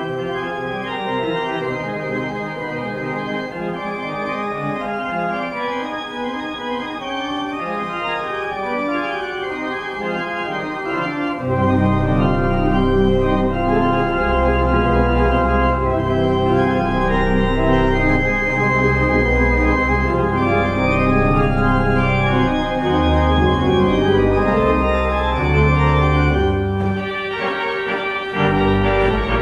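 Organ music: sustained chords, with deep bass notes coming in about eleven seconds in and a brief drop-out shortly before the end.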